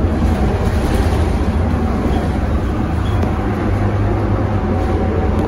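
Scania K230UB city bus under way, heard from inside the cabin by the front door: a steady low diesel engine drone mixed with road and tyre noise.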